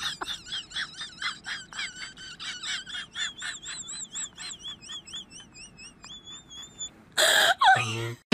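An animal's high chirping call, repeated about four times a second with a wavering pitch. It runs into a longer warbling note about six seconds in. A short loud noisy burst with a falling squeal follows near the end.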